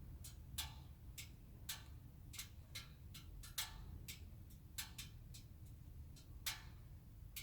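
Irregular sharp ticks and clicks, about three a second, from an Opel Astra K 1.6 diesel after the engine is switched off. The ticking is typical of metal contracting as it cools, and the owner puts it down to thermal expansion.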